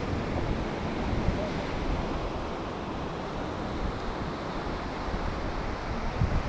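Ocean surf washing onto a beach, a steady rushing noise, with wind gusting on the microphone.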